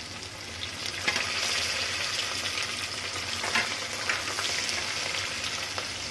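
Chopped onion, green chillies, coriander and mint sizzling in hot oil in an aluminium pressure cooker as they are sautéed, stirred with a steel spoon that scrapes and taps against the pot a few times. The sizzle grows louder about a second in.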